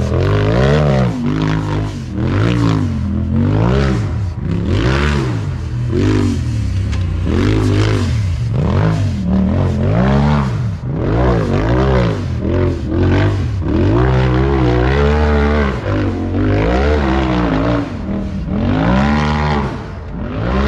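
Side-by-side race engine under hard throttle, revving up and falling back over and over, about once a second, as the driver works the throttle through the course.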